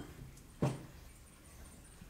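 A single sharp knock about half a second in, with faint low room noise after it.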